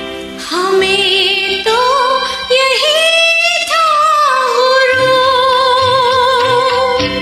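A woman singing a Hindi film song over a karaoke backing track, her voice coming in about half a second in, rising, then holding one long note with vibrato until near the end.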